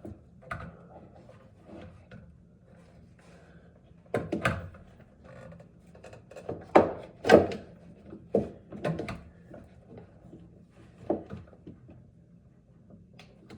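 Hard plastic knocks and clunks from handling the NU Aqua five-stage filter housings as a filter is worked out of its clip mount. The knocks are scattered, with a cluster about four seconds in and the loudest two about seven seconds in.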